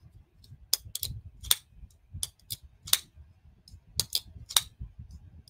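TRM folding knives being flicked open and snapped shut by hand: sharp metallic clicks of the blades deploying and locking, about nine at uneven intervals, some in quick pairs.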